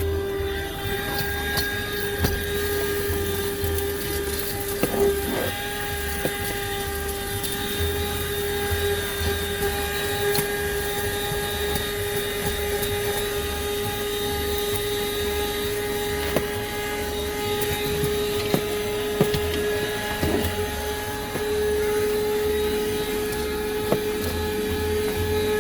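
Buture handheld 12-volt car vacuum running steadily with a high motor whine while cleaning a car's interior, with scattered sharp clicks through it.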